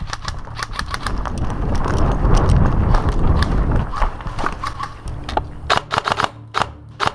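Footsteps and knocks of gear as a player moves over loose wooden planks and debris, many short irregular clicks, with a low rumble of handling or wind noise on the helmet camera in the middle.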